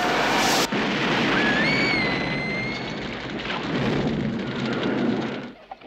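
Film sound effect of a car exploding: a long, loud rushing roar of fire that dies away after about five and a half seconds. A thin whistling tone rises about a second and a half in and then holds.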